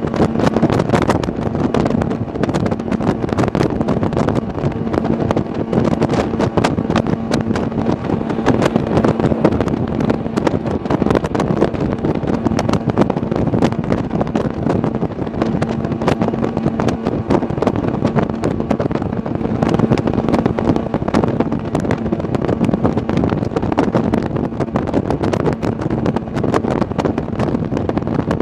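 Sea-Doo Speedster jet boat under way at steady speed, its engine running with a faint steady drone. Wind buffets the microphone in constant crackles over the rush of water.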